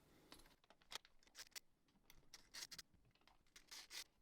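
Faint scattered clicks and light scrapes of a screwdriver backing small screws out of a cassette deck's back plate.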